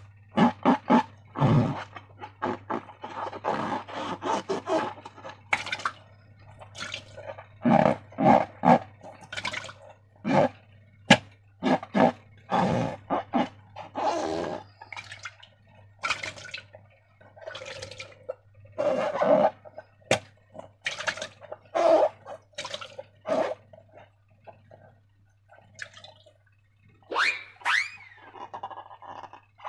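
Slime squelching and squishing as it is squeezed and worked by hand: a long run of irregular wet squelches, with a short rising squeak near the end and a steady low hum underneath.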